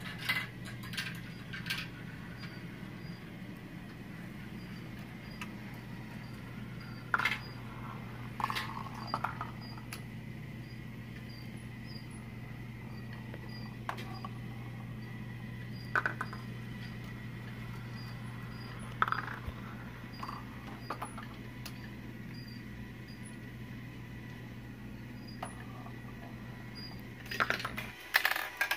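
Marbles rolling along plastic marble-run track, with scattered sharp clicks and clacks as they hit track joints and pieces, over a steady low hum. A dense burst of louder clattering comes near the end.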